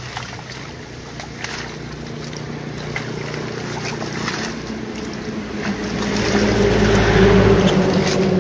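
Small motorboat engine running steadily on the waterway. It grows louder to a peak about seven seconds in, then eases off a little, as a boat passing close by would.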